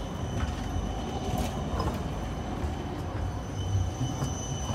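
Articulated low-floor tram passing close by: a steady low rumble of wheels on rail with a thin, steady high whine over it.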